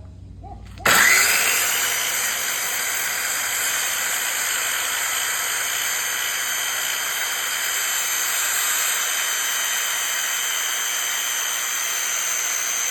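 Circular saw switched on about a second in, spinning up with a short rising whine, then running steadily at full speed through a cut in a board.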